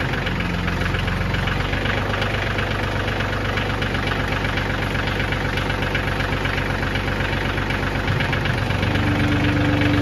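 Kioti DS3510 tractor's three-cylinder diesel engine running steadily. About nine seconds in it grows a little louder and a steady whine joins.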